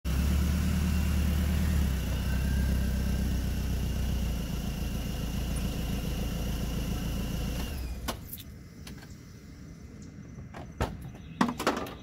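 BMW Z3 engine idling steadily, switched off about eight seconds in, followed by a few sharp clicks and knocks.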